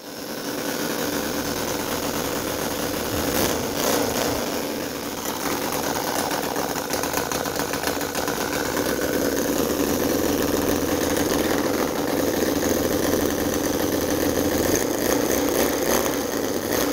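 CISON FG-VT9 9cc V-twin model gasoline engine running steadily. Its owner reports that it misfires on one cylinder.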